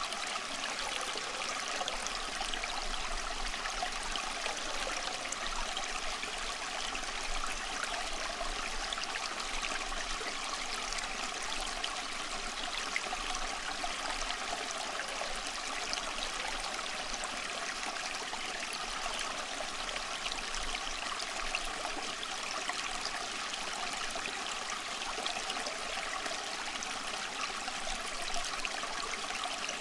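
Steady rushing and trickling of running water, like a babbling stream, unchanging throughout.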